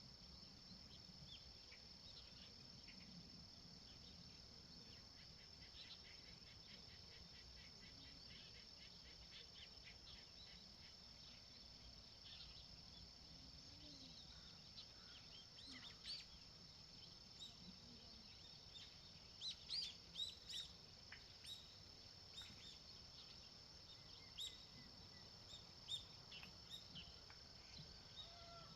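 Countryside birds chirping over a steady high-pitched insect trill. Short, sharp chirps come sparsely at first and then in quick runs through the second half, the loudest near the end.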